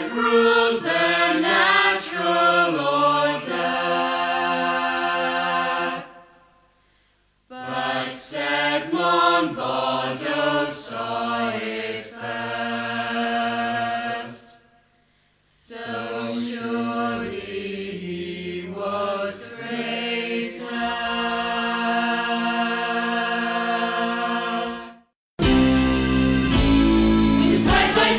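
Choir singing slow, chant-like phrases in harmony. There are three phrases, each settling into a long held chord and followed by a short silence. Near the end a louder, fuller choral passage starts suddenly.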